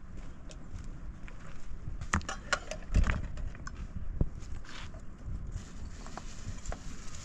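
Footsteps on rough mountain ground, with a cluster of sharp knocks and scrapes about two to three seconds in over a steady low rumble.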